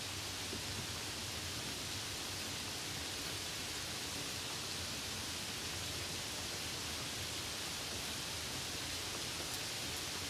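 Steady rain on a car during a drive: an even hiss with a faint low rumble underneath.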